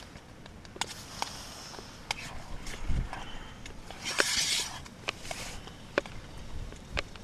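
Scattered light clicks and taps of a knife and spoon against a metal camping pot as sausage is cut into it, with a brief rustle about four seconds in.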